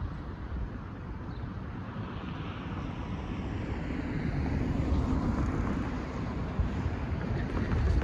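Cars driving past on the road, their tyres and engines swelling as they approach and pass, with wind rumbling on the microphone.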